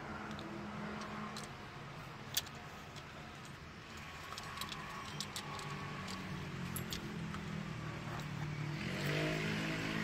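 Small steel parts of a door lock actuator kit, a thin rod, a slotted plate and a rod clip, clicking and clinking as they are handled by hand, with one sharp click about two and a half seconds in. Underneath runs a steady low hum that grows louder near the end.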